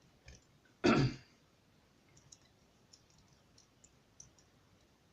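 Light clicking and tapping of a padlock and lock picks being handled, with one louder knock about a second in and scattered small metallic clicks after it.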